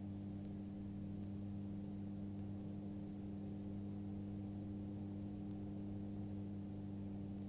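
Magni M24 gyrocopter's engine and pusher propeller running at a steady cruise setting: an even, unchanging low drone.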